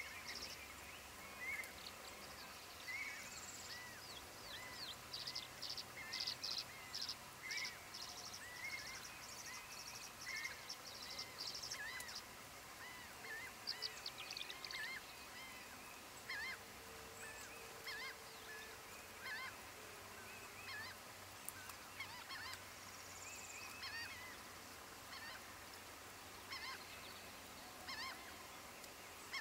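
Birds calling: a steady run of short, arched, mid-pitched call notes, repeating about once or twice a second. It is joined a few times by bursts of fast, high twittering.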